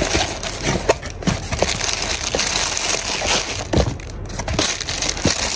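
Packaging crinkling and rustling as it is handled, with a few small clicks and knocks.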